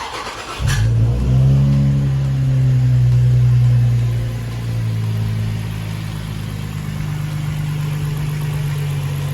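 Infiniti G35 coupe's 3.5-litre VQ V6 starting up: a brief crank, the engine catching less than a second in, flaring up for a few seconds, then settling into a steady idle.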